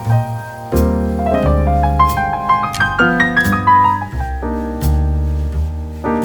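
Background piano music: a melody over a low bass line with notes changing quickly.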